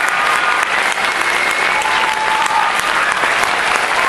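Audience applauding steadily, a dense clatter of many hands clapping after a saxophone solo.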